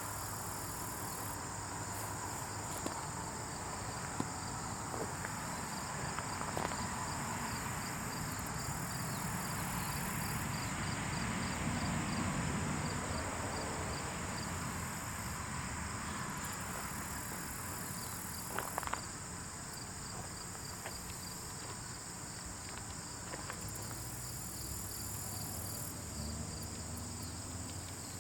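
Steady chorus of insects, with a high chirring of crickets over a soft rustling bed. A fast, even series of chirps runs through the first half, and a few faint ticks stand out, one pair about two-thirds in.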